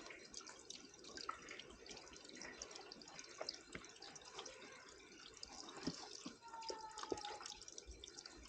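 Faint water dripping and trickling among rocks, many small irregular drips.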